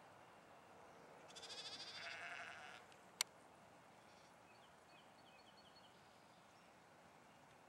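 A sheep bleats once, a wavering call lasting about a second and a half. A single sharp click follows shortly after, louder than the bleat.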